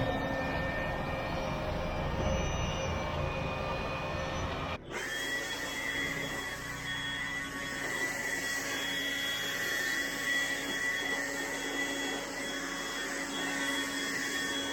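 Steady machine hum with several high, even tones. About five seconds in it cuts abruptly to a steadier hum with less low rumble.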